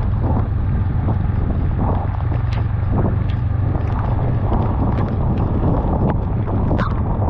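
Honda Rebel 500's parallel-twin engine running steadily at cruising speed, under wind noise on the microphone and the hiss of rain and wet tyres, with a few scattered sharp ticks.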